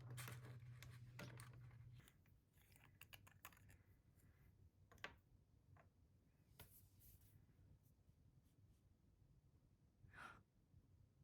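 Faint scattered clicks and light taps of small objects being handled on a desk. A low hum stops about two seconds in, and a short breathy sound comes near the end.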